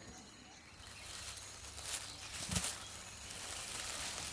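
Outdoor ambience: a steady high hiss of insects, with a few brief rustles and clicks and a soft knock about two and a half seconds in.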